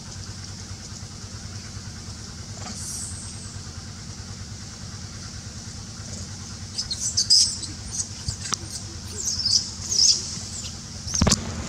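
Newborn long-tailed macaque squeaking: a flurry of short, high-pitched squeals about two-thirds of the way through, over a steady low hum, with a sharp knock near the end.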